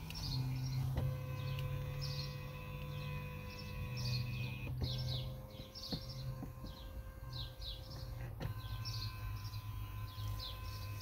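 Birds chirping in short, repeated falling calls over a low steady mechanical hum, which shifts level with a click a few times.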